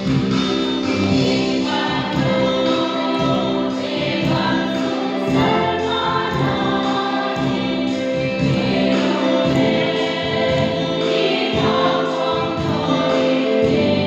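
Women's choir singing a hymn together, mostly on long held notes.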